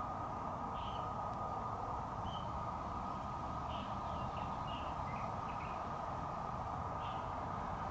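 Birds chirping, about nine short high calls scattered through, over a steady background drone.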